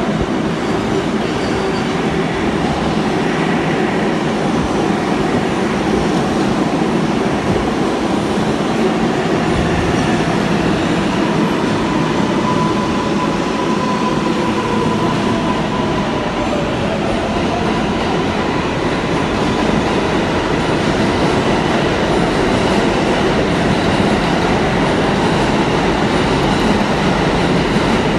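New York City subway 7 train of R188 cars moving along the station platform, a loud steady rumble of wheels and traction motors. A thin high tone holds for a few seconds about halfway through, then a falling whine follows.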